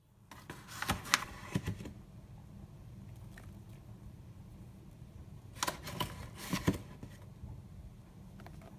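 Two clusters of sharp clicks and knocks, about a second in and again about six seconds in, over a low steady hum: a metal spoon knocking against a plastic mixing bowl as flour is spooned in.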